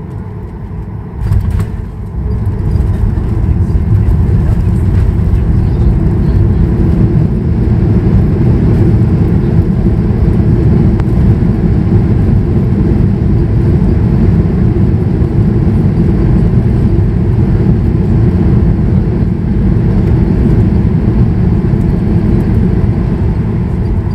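Boeing 737-800 touching down, heard from the cabin: a sharp thump about a second in, then the CFM56 engines build up in reverse thrust to a loud, steady rushing noise with runway rumble as the jet brakes on its landing roll.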